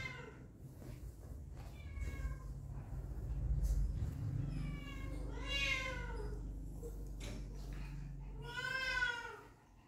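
Young puppies whining and whimpering in several short, high-pitched calls that rise and fall, the loudest near the end, over a low rumble.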